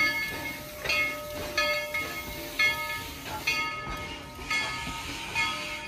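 Steam locomotive bell ringing steadily, about one strike a second, each strike ringing on briefly, over the low rumble of the moving train.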